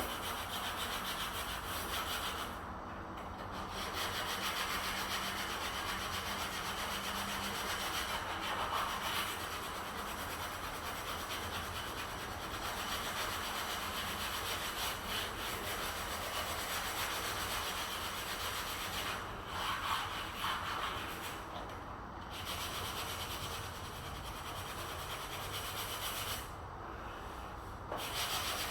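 Steady rubbing and scraping on wood, hand work on a wooden door or frame, broken by a few brief pauses.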